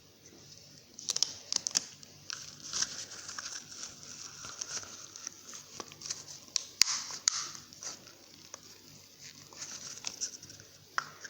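Hands working small crafting materials close to the microphone: irregular crinkling and rustling with many sharp clicks.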